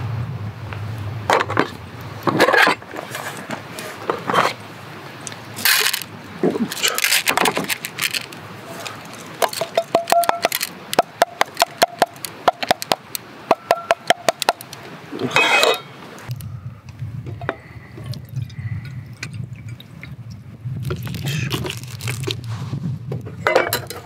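Dry rice being poured from a cup into an aluminium mess tin, the grains rattling on the metal in a quick run of clicks. Then comes water splashing as the rice is rinsed for cooking.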